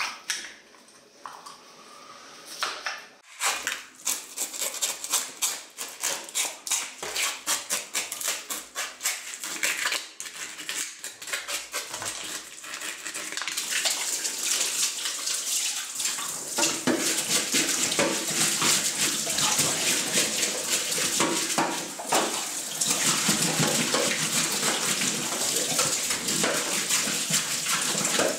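Fish frying in hot oil in a kazan: the oil crackles and spits, then about halfway through builds into a steady, loud sizzle.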